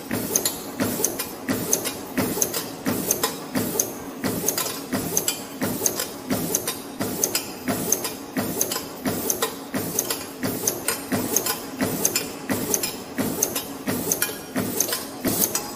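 CNC wire ring-forming machine running production, coiling and cutting 1.12 x 4.0 mm wire rings, with a rapid, even rhythm of metallic clicks and clatter over a steady mechanical hum.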